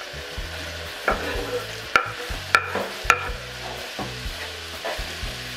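Smoked ham cubes sizzling in a frying pan as diced onion is scraped off a wooden cutting board into it with a chef's knife. Several sharp clicks of the knife against the board and pan cut through the steady frying.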